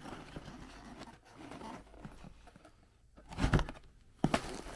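Cardboard packaging being handled: box flaps rustling and scraping, with a short run of knocks about three and a half seconds in and a single sharp click near the end.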